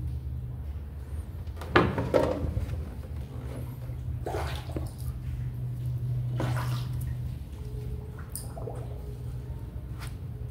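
Water sloshing and splashing against a boat and a concrete pillar, a few separate splashes over a steady low hum, with a sharp knock about two seconds in.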